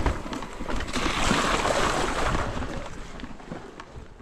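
Mountain bike riding through a shallow rocky creek crossing: a sharp knock as the front wheel hits, then about a second and a half of tyres splashing through the water, fading away as the bike rolls on.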